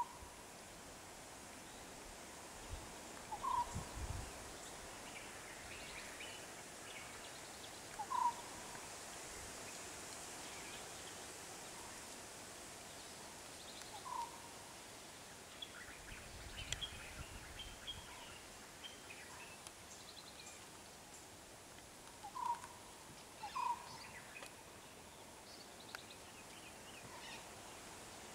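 Wild birds calling over faint outdoor background noise: a short call repeated every few seconds, with scattered higher chirps between.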